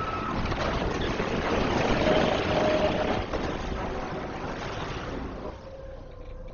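Overturned SUV sliding along the road on its roof: a dense grinding scrape of metal on asphalt with a few short squeals. It dies away about five and a half seconds in as the vehicle comes to rest.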